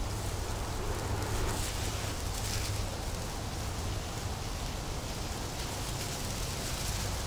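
Breath blown in a few rushing puffs into a smouldering tinder bundle to bring an ember up to flame, over a steady hiss.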